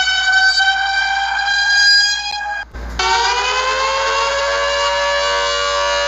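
Two emergency-alert alarm sounds in turn. First a steady, chord-like horn tone, which cuts off about two and a half seconds in. After a brief break, a siren tone rises in pitch and then holds steady.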